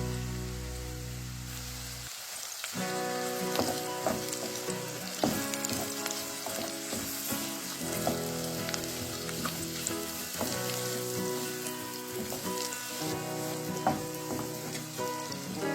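Food frying in a skillet: a steady sizzle broken by scattered sharp clicks, as from a utensil stirring in the pan.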